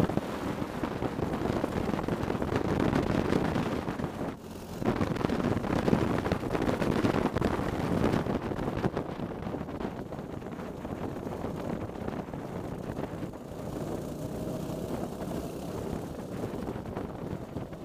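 Racing kart engine running at speed, heard from the kart itself, mixed with wind buffeting the microphone. The sound dips briefly about four seconds in and runs somewhat quieter in the second half.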